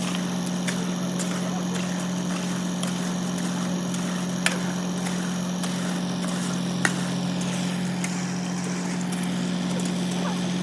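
An engine running steadily at a constant speed, with two sharp knocks about two and a half seconds apart near the middle.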